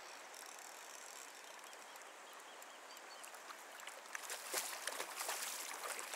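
Steady flow of a shallow river, then from about four seconds in a hooked trout thrashing at the surface, with a run of short irregular splashes.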